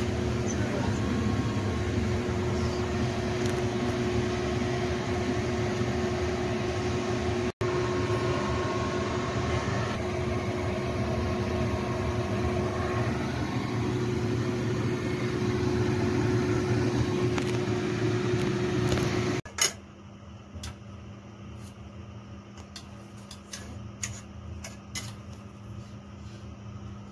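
Steady hum of a kitchen appliance's fan motor with a steady tone through it, cutting off suddenly about 19 seconds in. After that comes a fainter low hum with light clicks and clinks of kitchen utensils.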